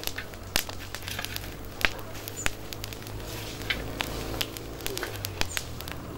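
Wood embers crackling under a whole goat on a spit: scattered sharp pops and clicks at irregular intervals over a low steady hum.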